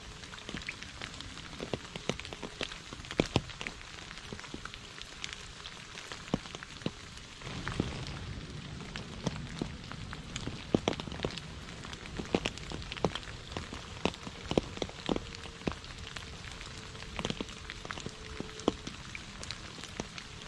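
Steady rain falling on a puddle and wet leaves, with many close, sharp drop splashes on the water. A low rumble swells about a third of the way in and fades over a few seconds.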